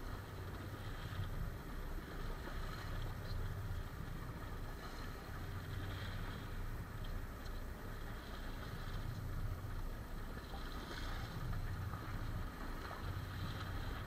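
Choppy sea water slapping and sloshing against the hull of a fishing boat, with a steady low rumble underneath that swells and eases every second or two.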